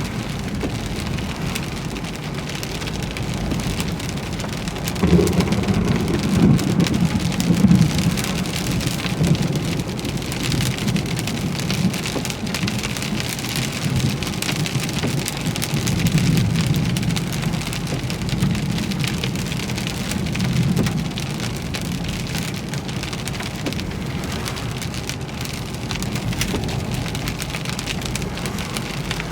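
Heavy thunderstorm rain pelting steadily, with low rumbles of thunder swelling about five seconds in and again later.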